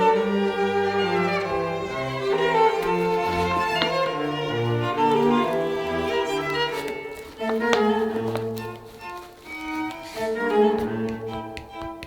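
Background music led by bowed strings, violin and cello, playing held notes. A few short sharp clicks sound over it, about four, eight and eleven seconds in.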